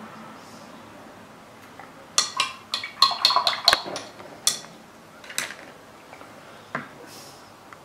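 Small hard objects clinking and clattering on a work table, most likely a paintbrush and painting tools being put down among the clutter: a quick run of about a dozen sharp clicks starting about two seconds in, then a couple of single knocks.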